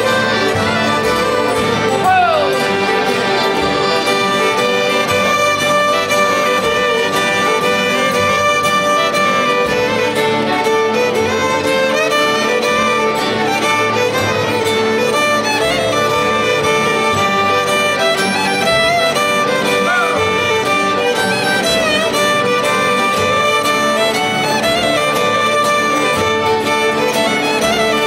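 A Cajun band playing a waltz: several fiddles carry the melody over strummed acoustic guitars and a diatonic Cajun button accordion, with the odd fiddle slide between notes.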